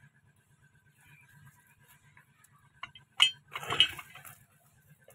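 Pipe wrench clinking against a brass fitting on a galvanized iron pipe as the fitting is tightened: two sharp metal clinks about three seconds in, then a longer scraping clatter just before four seconds.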